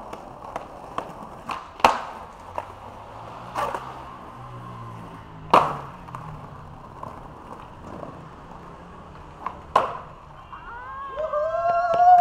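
Skateboard wheels rolling steadily, broken by several sharp cracks of the board being popped and landed. Near the end a person lets out a long, drawn-out shout.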